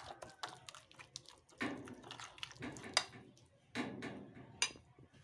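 Metal spoon stirring a thick, wet yogurt-and-spice marinade in a glass plate: soft squelching with scattered clicks of the spoon against the glass.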